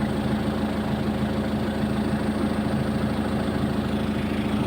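Excavator's diesel engine running steadily at a constant speed, a low even hum.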